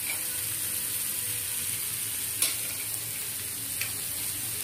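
Chopped onions sizzling steadily as they fry in oil in a steel pan, with a brief click about two and a half seconds in.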